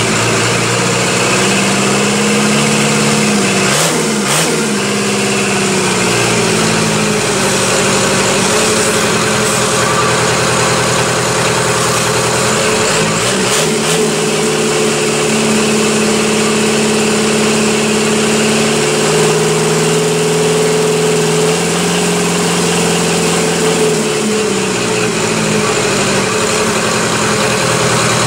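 Freshly rebuilt diesel engine running on a stand with no load, its throttle worked by hand. The engine speed shifts about 4 seconds in, rises around 13 seconds, holds higher for about ten seconds, then falls back. It rolls and surges because the fuel pump's throttle does not work properly without a load on the engine.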